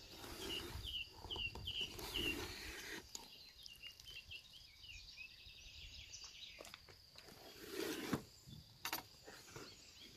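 Cardboard box handled and turned over, with soft rustling and a few light knocks. A bird chirps a quick run of short, repeated high notes in the first couple of seconds.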